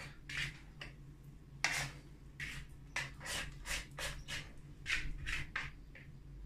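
Plastic dough scraper scraping sticky bread dough from the inside of a plastic mixing bowl: a quick, irregular series of short scrapes, about a dozen.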